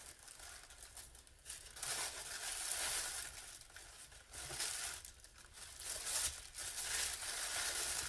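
White tissue paper rustling and crinkling as a ribbon-tied parcel is untied and unwrapped by hand, in uneven stretches that grow louder about two seconds in and again from about five and a half seconds on.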